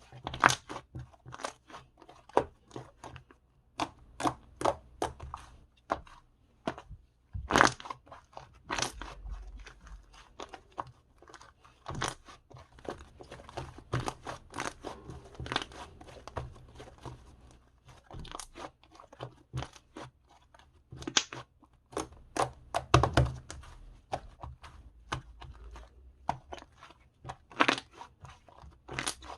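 Slime being squeezed and poked by hand, giving irregular crunchy pops and clicks, several a second at times, with short pauses between handfuls.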